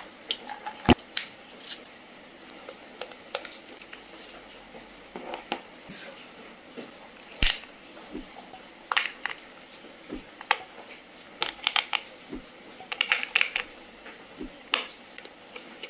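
Irregular small clicks, taps and scrapes of hands working on a multimeter's plastic battery compartment: a screwdriver on the cover screw, a utility knife on the battery packaging, and batteries pressed into the compartment. The sharpest clicks come about a second in and again about seven and a half seconds in.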